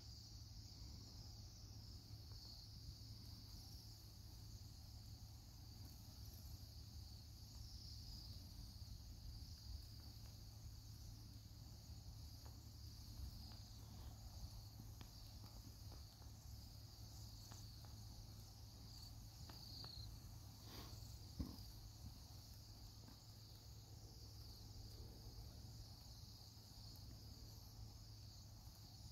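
Faint, steady chorus of high trilling calls from a flock of bohemian waxwings, with one sharp click about three-quarters of the way through.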